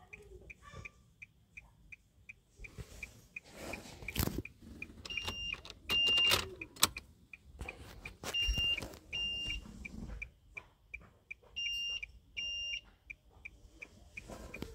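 Short electronic beeps, mostly in pairs, with one longer and louder beep about six seconds in. They play over a faint steady ticking about three times a second. Clicks and knocks come from the key being turned in the car's ignition.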